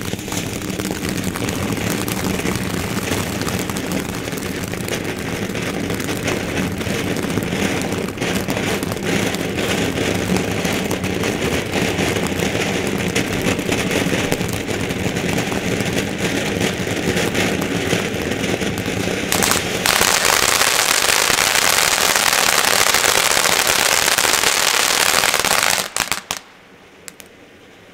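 Winda Lighthouse ground fountain firework spraying sparks with a steady hiss and crackling. About twenty seconds in it turns to a louder, brighter hiss, then drops off sharply near the end.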